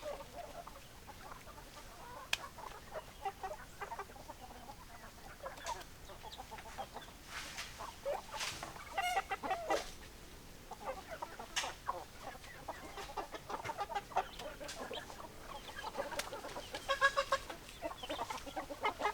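Chickens clucking: scattered short calls, busier near the end, with a few sharp clicks among them.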